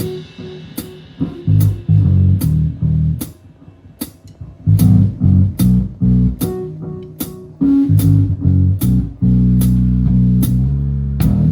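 Electric bass guitar and drum kit playing together: short plucked bass phrases with gaps, punctuated by sharp drum and cymbal hits, then a long held bass note near the end.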